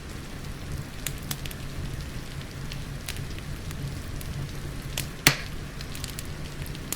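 Fireplace crackling over steady rain: a constant hiss with scattered small crackles, and one sharp loud pop from the fire about five seconds in.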